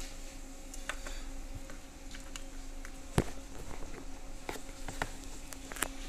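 A steady low buzzing hum, with scattered light clicks and taps from handling the controller card's wiring and plug-in connectors and one sharper click about three seconds in.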